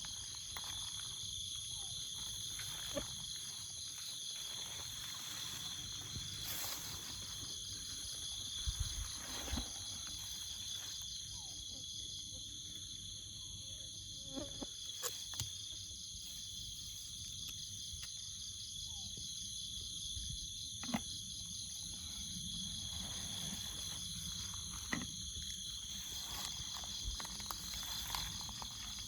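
Steady chorus of jungle insects, several high-pitched trills overlapping without a break, with occasional short clicks and rustles.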